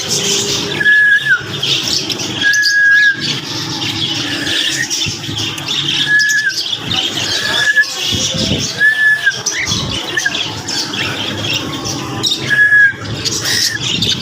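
Chatter of many caged birds squawking and chirping together, with one short, clear whistled note repeating about six times at uneven gaps of a second and a half to three seconds.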